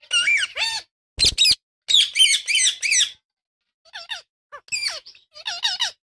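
Indian ringneck parrots chirping: short squeaky calls that bend up and down in pitch, in quick clusters of a few notes with short pauses between. There is a brief low thump about a second in.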